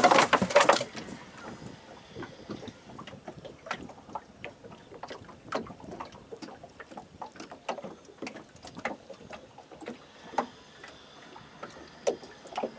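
Small boat moving through floodwater: a loud splashing rush in the first second, then scattered light knocks and clicks.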